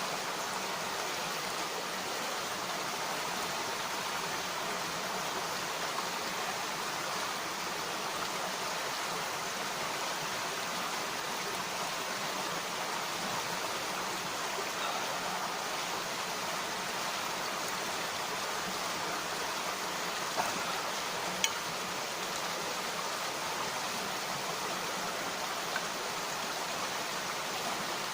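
Mountain stream rushing steadily over rocks. A few brief sharp clicks stand out about two-thirds of the way through.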